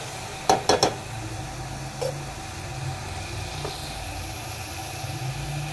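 A metal spoon knocking twice against a metal cooking pot about half a second in, with a fainter tap or two later, over a steady low hum and hiss.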